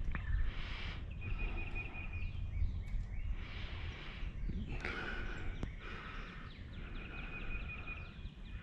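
Songbirds singing and calling in the background: quick repeated chirps and short sliding notes, with a rapid trill-like series twice, over a steady low rumble.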